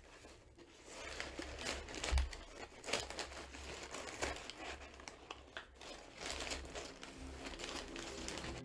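Brown kraft packing paper being crumpled and stuffed into a cardboard shipping box: an irregular run of crinkles and rustles, with a dull bump about two seconds in as the paper is pressed down.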